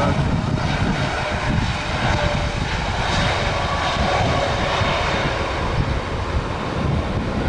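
Airliner engines running steadily, a faint whine over a broad roar, with wind buffeting the microphone in a deep, ragged rumble.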